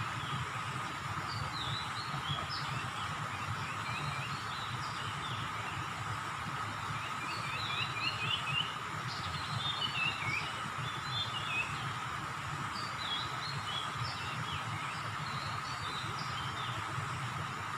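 Small birds chirping, short quick notes coming in clusters, busiest a few seconds in and around the middle, over a steady hum and low background rumble.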